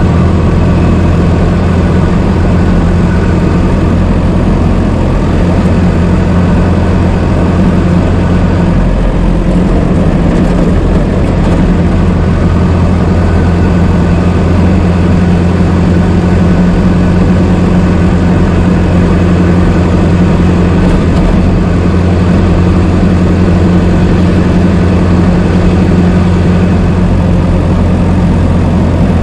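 Old car engine running steadily at an even, unchanging pitch, a low continuous engine note.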